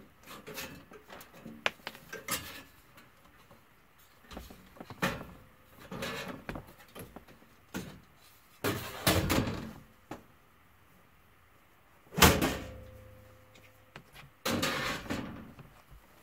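Sheet-metal access panel of a Lennox furnace cabinet being unlatched and lifted off, rattling and clanking, with one loud metallic clang about three-quarters of the way through that rings briefly.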